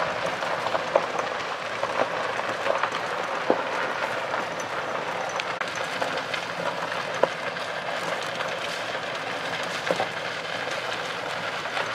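Golf cart riding along: a steady rolling noise with scattered rattles and knocks from the cart and its wheels.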